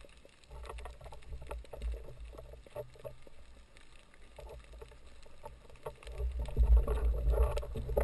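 Water movement heard through an underwater camera housing: a low rumble with scattered clicks, growing louder in the last two seconds as the camera nears the surface.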